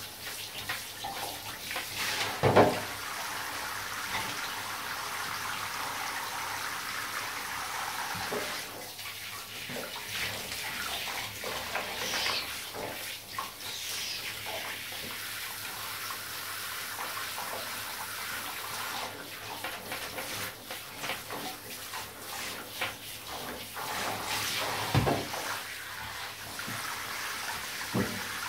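Handheld shower head spraying water over a cat and into a bathtub: a steady hiss of running water, with a louder thump a couple of seconds in and another near the end.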